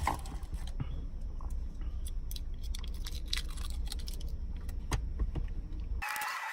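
Scattered light clicks and rattles of handling a plastic dental impression tray and putty, over a steady low rumble. Near the end the rumble cuts out and a brief hiss with a faint tone takes over.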